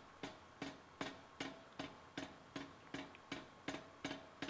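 Power hammer's dies striking a hot carbon-steel bar in a steady rhythm, nearly three blows a second, each blow with a short metallic ring, as the square taper is drawn out.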